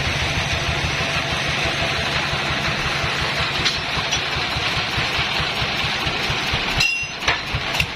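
An engine running steadily under a dense, even noise. Just before seven seconds in it cuts off abruptly, and an engine idling with a regular beat of about three or four thumps a second follows.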